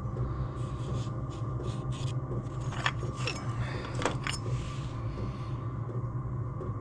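Light clicks, taps and a brief scrape from a hand-worked aluminium panel being handled, with a few sharper ticks about three and four seconds in, over a steady low hum.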